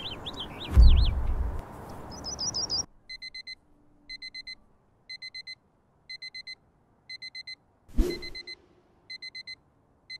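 Birds chirping with a low rumble about a second in, then a digital alarm clock beeping in groups of four quick beeps about once a second. A single knock sounds about 8 seconds in.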